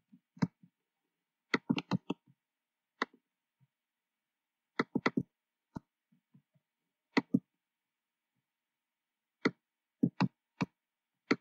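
Computer keyboard keystrokes and mouse clicks, a few presses at a time in short clusters with pauses of a second or more between.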